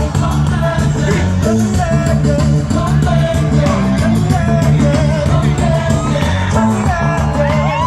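Loud upbeat band music with a strong bass line and a steady beat, with singing over it.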